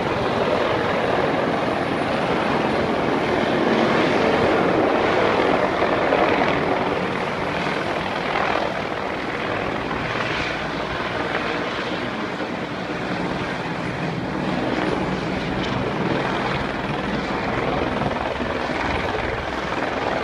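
A steady, loud engine drone.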